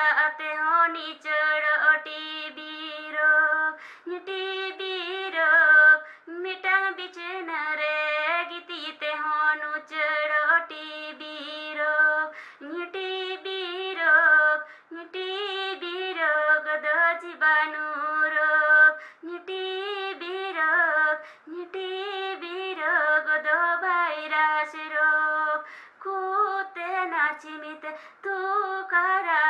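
A woman singing solo, with no instruments heard, in short melodic phrases broken by brief pauses.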